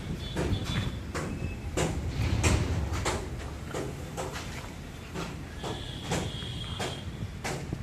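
Irregular sharp knocks and clanks, a dozen or more, over a steady low hum, with a short high whine near the start and another, longer one about three quarters of the way in.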